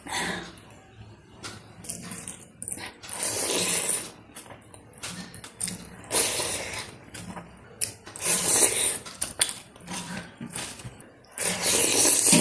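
Wet eating sounds of rice with dal and greens being chewed: many small smacking clicks, with longer squelching bursts every two to three seconds.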